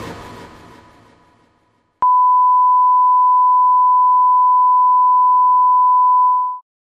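Electronic dance music fades out. About two seconds in, a television test-card tone starts: one pure, steady, loud beep held at a single pitch for about four and a half seconds, which then cuts off suddenly.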